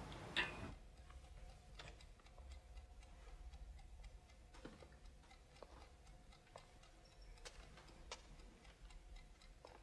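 Near silence: a low hum with faint, separate clicks roughly once a second.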